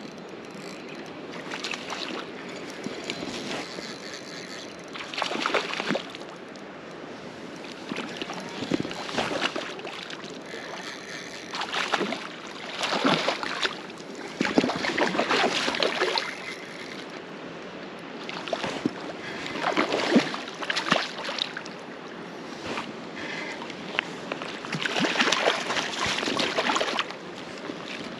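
A hooked trout thrashing and splashing at the water's surface while being played on a light spinning rod, in repeated bursts of sloshing every few seconds over the steady wash of the creek.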